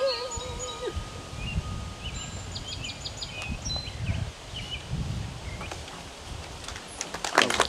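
A singer's last held note, with a steady vibrato, ends about a second in. Then come garden ambience and a few short bird chirps. Hand clapping starts near the end.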